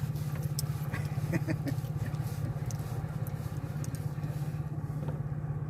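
A small engine running steadily at a low, even pitch, with a few faint clicks over it.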